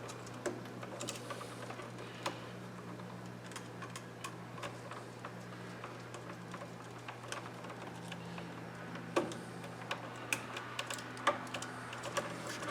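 Scattered small clicks and taps of wires, terminal screws and a screwdriver as black wires are fitted onto a wall receptacle's screw terminals, more frequent near the end. A steady low hum runs underneath.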